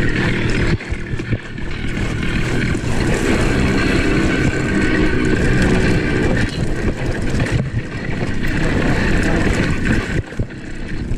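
Wind rushing over the microphone while a mountain bike rides fast downhill over dirt, with the bike's knocking and rattling over rough ground.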